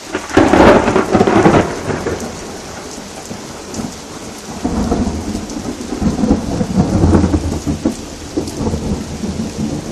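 Thunder from a close lightning strike: a loud clap about half a second in that rumbles away over a couple of seconds, then a second long rolling rumble from about five seconds in. Steady rain falls throughout.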